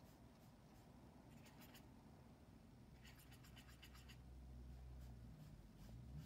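Faint scratching of a watercolour paintbrush: a short burst of quick strokes about a second and a half in, then a longer run of rapid strokes around three to four seconds in as the brush is scrubbed in a paint pan.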